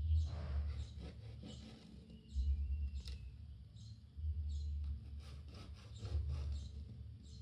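Pen tracing around a ring on cardboard, a series of short scratchy strokes. Dull low rumbling bumps come and go several times, from the hands pressing on the table.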